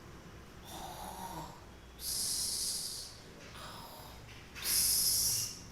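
A woman imitating snoring with her voice, done twice: each time a soft snore on the breath in, then a long hissing breath out.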